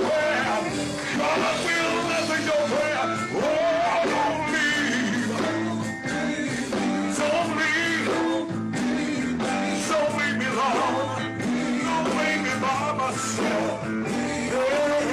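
Live gospel church music: a band plays sustained chords while a lead voice sings in long, bending lines over it.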